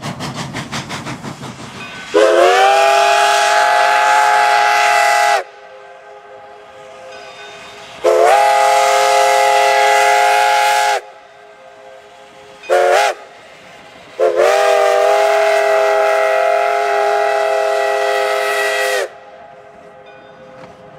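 Nathan five-chime steam whistle on Denver & Rio Grande Western steam locomotive No. 488 blowing long, long, short, long, the grade-crossing signal. Each blast slides up into a full steady chord, the last held longest, with a steady steam hiss between blasts. Fast rhythmic exhaust chuffing from the working locomotive fills the first two seconds.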